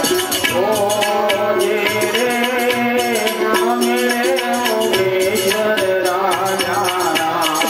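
Live folk music: a wavering melody line over a steady held drone, with an even beat of hand drums and jingling percussion.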